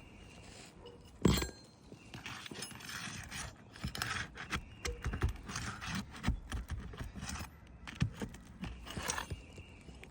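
Hand tools working under asphalt shingles: the hatchet end of a hammer scraping, tapping and prying beneath the tabs to reach and pull roofing nails, with one sharper knock about a second in and many small clicks and scrapes.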